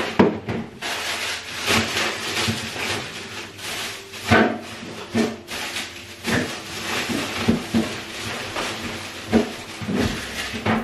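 Plastic grocery bag rustling and crinkling while vegetables and containers are put onto refrigerator shelves, with a series of short knocks and clunks as items are set down.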